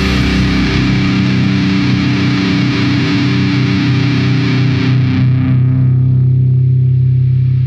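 Music: a distorted electric guitar chord left ringing at the end of a heavy rock track, its bright upper overtones fading away about five seconds in.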